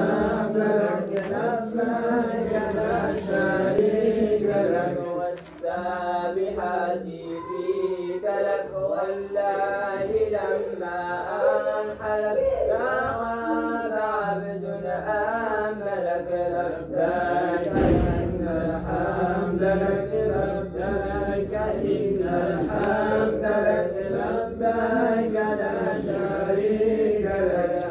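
Voices chanting Moroccan amdah nabawiya, devotional songs in praise of the Prophet, in long melodic lines that rise and fall without a break.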